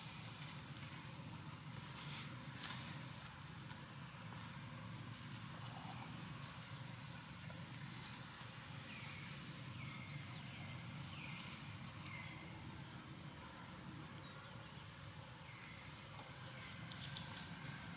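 Outdoor ambience with a bird repeating a short, high call about once every second or so, a few lower falling calls from another bird in the middle, and a steady low hum underneath.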